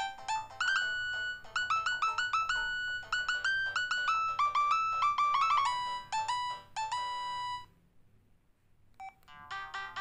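Huawei C210e phone playing a polyphonic MIDI ringtone through its small loudspeaker: a quick synthesized melody of short stepped notes that stops about eight seconds in. After a short gap and a brief blip, the next ringtone melody starts near the end.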